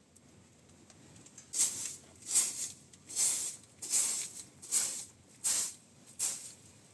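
Seven rhythmic hissing strokes, evenly spaced a little under a second apart, starting about a second and a half in: something brushed or scraped repeatedly over a surface.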